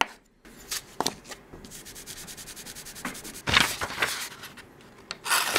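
A steel chisel rubbed back and forth on a leather-free strop, the back of a sanding disc charged with metal polish: scraping strokes, then a quick run of small even ticks. A louder rustle of a sheet of paper comes about three and a half seconds in, and a steady hiss starts just before the end.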